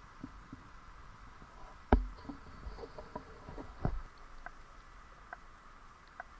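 Handling noise from an action camera in a waterproof housing as it is dipped and moved through the creek water. Muffled knocks and small clicks sound over a steady hiss, with the loudest knock about two seconds in and another about four seconds in.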